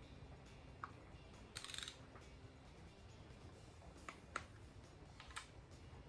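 Faint hand-tool clicks and a brief ratcheting about one and a half seconds in, from a quarter-inch torque wrench tightening oil pump bolts on an engine, with a few more single clicks later.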